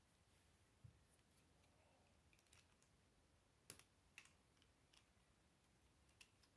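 Faint, scattered clicks of plastic K'nex rods and connectors being fitted together by hand, with two sharper clicks around the middle.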